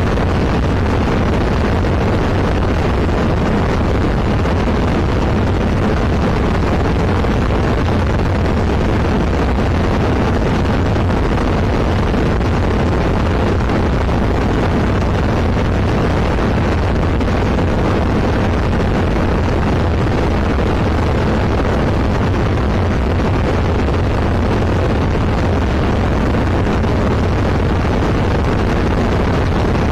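Zenith CH701 light aircraft's engine and propeller running steadily in flight, a constant loud drone with steady low tones and wind noise, heard from inside the open-framed cockpit.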